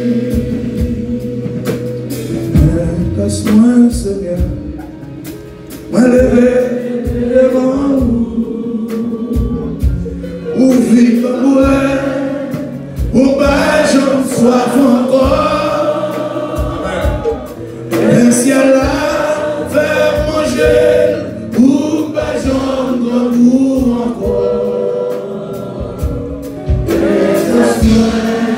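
Gospel choir of women singing a praise song in Haitian Creole into microphones, led by a male worship leader, over live instrumental accompaniment.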